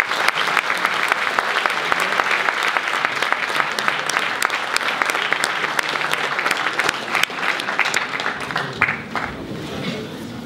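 Audience applauding: dense clapping of many hands that thins out and fades away near the end.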